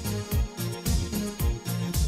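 Background music with a steady beat: a thudding low drum about twice a second under sustained keyboard-like notes.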